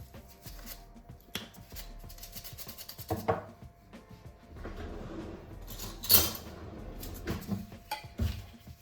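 Kitchen clatter of dishes and utensils: a string of knocks and clinks, the loudest about six seconds in, over soft background music.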